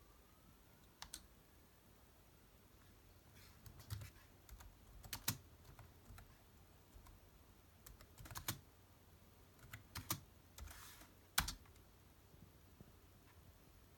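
Faint typing on a computer keyboard: a few short runs of keystrokes with pauses between, the sharpest single key click a little after eleven seconds.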